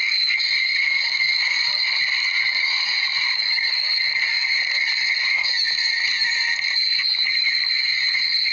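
A dense, steady chorus of calling animals, high-pitched and continuous, with no break or change.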